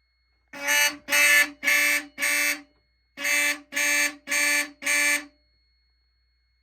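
Fire alarm horn sounding in coded pulses driven by a NAC coder: four buzzy blasts, a short pause, then four more. This is the code 44 pattern.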